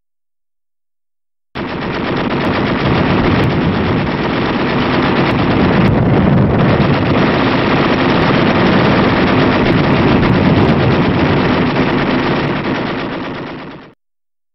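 Sustained rapid machine-gun fire, starting about a second and a half in and fading out near the end, with the dull, narrow sound of an old film soundtrack.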